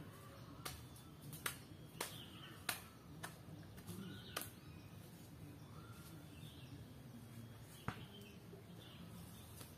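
Faint forest ambience with small birds chirping now and then, broken by several sharp clicks and snaps in the first half and one more near the end.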